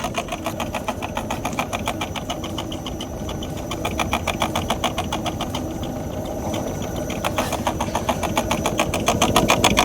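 Audi A4 B8 coil spring creaking and knocking in a rapid, even rhythm as a vibration test stand shakes the suspension, growing louder near the end. The squeak comes from the spring at its rubber top seat and mount: it stops when the spring is loaded and returns when it is unloaded.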